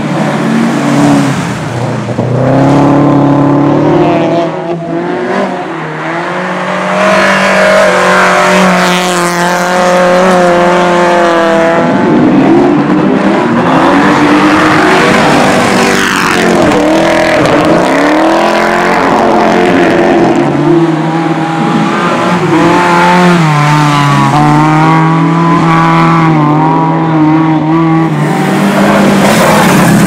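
Rally cars, among them Subaru Imprezas with their flat-four engines and a Mercedes-Benz CLK, driven hard one after another on a dirt track. The engines rev up and down, rising and falling in pitch, with some tire noise as the cars slide through the corners.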